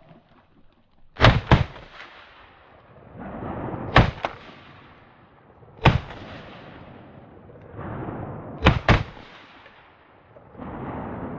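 12-gauge shotgun shots: a quick double about a second in, single reports near four and six seconds, and another quick double near nine seconds, each sharp and loud. Swelling rushes of noise build up before several of the shots.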